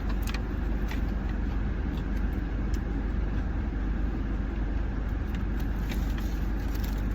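Steady low rumble, like an idling vehicle engine, with a few faint clicks.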